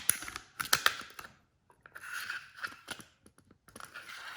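Glock pistol slide being slid back onto its frame: a run of sharp metal clicks and a short scrape of metal sliding on metal.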